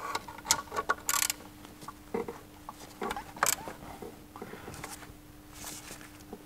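Ratchet and socket on an extension clicking and clinking in short, irregular bursts while undoing the 13 mm bolts that hold a turbo boost-control solenoid, over a faint steady hum.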